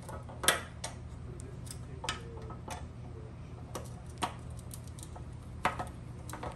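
Irregular sharp metal clicks and scrapes as a screwdriver works at a screw in the backguard mounting bracket of a gas range, the screw struggling to catch. A steady low hum runs underneath.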